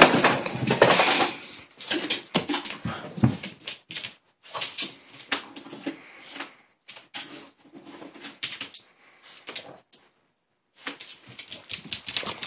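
A dog scrambling after a laser dot on a vinyl tile floor, its claws clicking and skittering in quick irregular bursts, mixed with the dog's own vocal sounds. It goes quiet briefly about ten seconds in.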